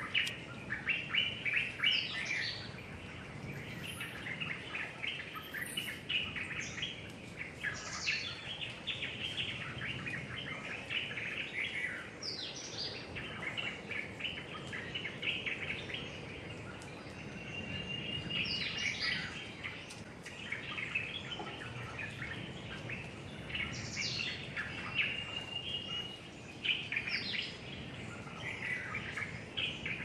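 Several wild birds calling together: a dense chatter of short overlapping chirps, with higher calls sweeping downward every few seconds and two brief steady whistles, one about halfway and one near the end.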